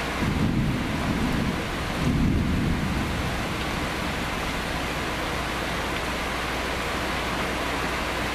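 Thunder rumbling low in two swells over the first three seconds, over steady heavy rain from a severe thunderstorm.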